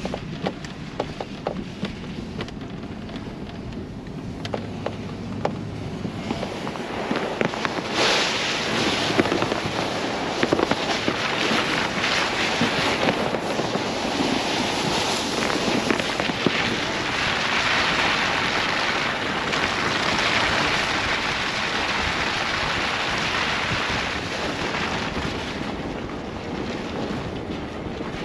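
Ford Bronco driving over snow and a gravel track: crackling tyre and road noise mixed with wind rushing over the microphone. It gets much louder about eight seconds in.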